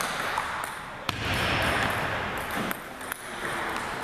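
Table tennis rally: sharp, irregular clicks of a celluloid ball off paddles and the table, over a steady hum of background noise.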